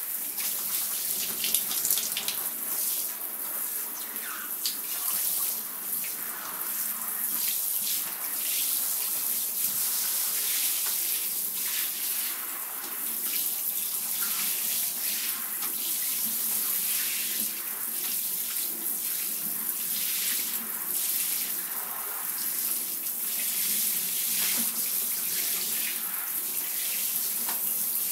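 Running water pouring into a bathtub and splashing into shallow water: a steady rush with uneven splashes.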